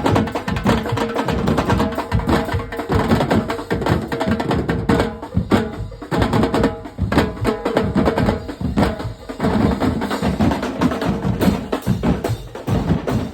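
Music led by drums and percussion, with a steady beat.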